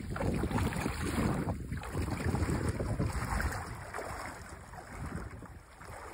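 Wind gusting on the microphone over moving river water and light splashing, louder over the first few seconds and easing off toward the end.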